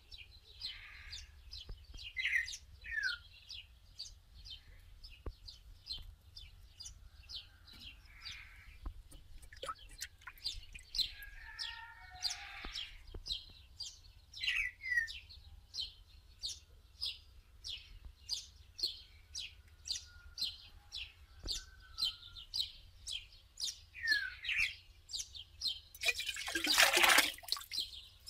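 Small animals chirping, a short high-pitched chirp repeating about twice a second with occasional descending calls, over a low steady hum. Near the end a loud noisy rush lasts about a second and a half.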